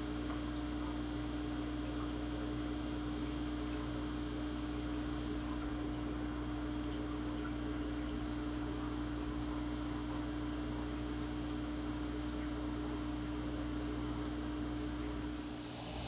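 Steady electrical hum of aquarium pump equipment running on a fry rearing tank, one strong steady tone over a low drone and a faint wash of water noise; it cuts off near the end.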